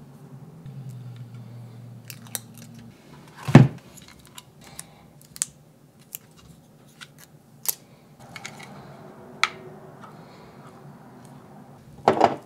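Handling noise from a Hollyland Mars 4K wireless video transmitter and receiver being turned in the hands and set into a foam-lined box: scattered clicks and taps, with a louder knock a few seconds in and another cluster of knocks near the end.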